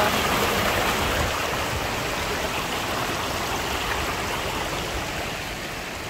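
Shallow mountain river rushing over stones, a steady noise of running water that grows a little fainter toward the end.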